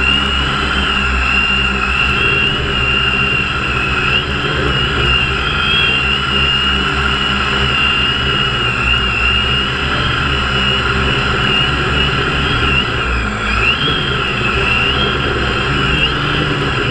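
Radio-controlled helicopter flying low: a steady high motor whine that wavers slightly in pitch, over the low thrum of the rotor blades.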